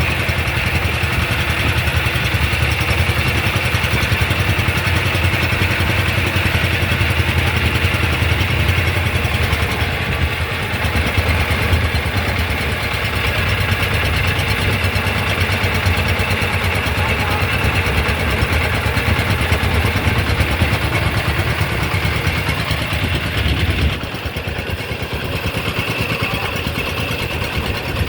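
A steady engine hum under a steady hiss; the engine's low hum cuts out suddenly about 24 seconds in, leaving the hiss.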